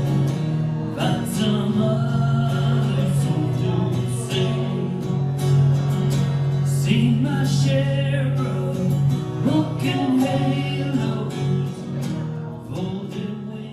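Live acoustic duo playing two strummed acoustic guitars in a country-folk style, with a voice singing in places; the playing tails off near the end.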